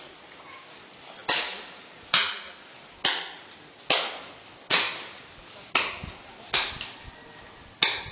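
Footsteps crunching through dry leaf litter on a forest floor, a steady walking pace of about one step a second, each step a sharp crunch that dies away quickly; eight steps, then the sound cuts off suddenly.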